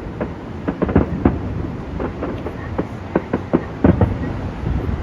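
Fireworks display: an irregular run of sharp bangs and crackles over a continuous low rumble, with the loudest bangs about a second in and again between three and four seconds in.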